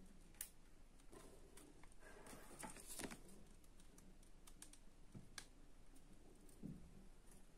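Near silence with faint, scattered clicks and taps: small crafting items and a plastic hot glue gun being handled.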